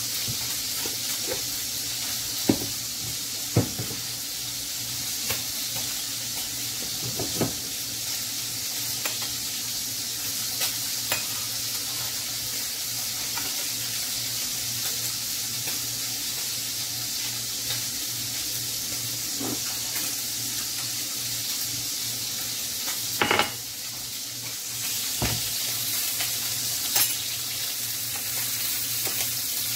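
Vegetarian chicken pieces frying in a hot pot with a steady sizzle, with a few short clinks of a utensil against the pot.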